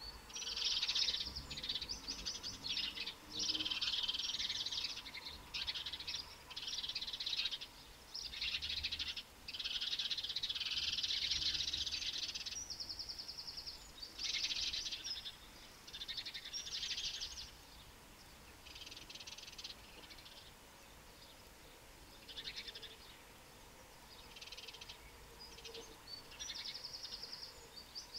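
Songbirds singing: phrases of high, rapid twittering and trills, one after another for the first seventeen seconds or so, then sparser and fainter.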